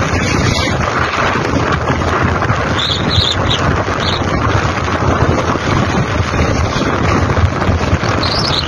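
Strong wind buffeting the microphone over the steady rush of fast-flowing floodwater.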